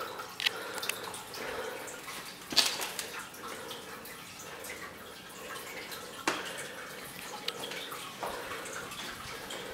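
Faint steady trickling of water over a low hum, with a few short knocks, the loudest about two and a half seconds in.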